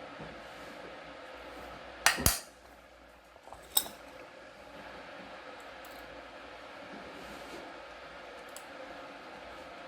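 Quick metallic clinks of small tools or parts knocked on a hard work surface: two close together about two seconds in and one more a second and a half later, over a steady background hiss.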